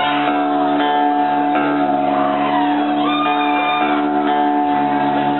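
Rock band playing live: electric guitar and bass ringing out long held chords, with a voice singing over them.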